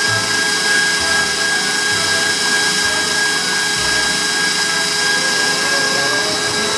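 Electric stand mixer running at a steady speed, mixing batter in its glass bowl: a constant motor hum with a steady high whine.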